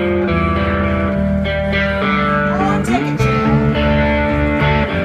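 Amplified cigar box guitars playing an instrumental blues passage, with a few notes sliding in pitch about three seconds in.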